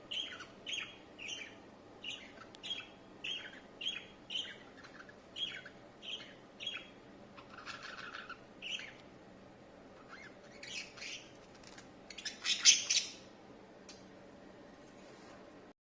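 Budgerigars chirping in a run of short, sharp chirps, roughly two a second, then more scattered calls, with one louder, harsher squawking burst about three quarters of the way through.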